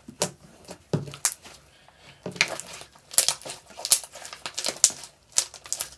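Cloud slime mixed with instant snow being squeezed and kneaded by hand, giving an irregular run of short sticky crackles and pops.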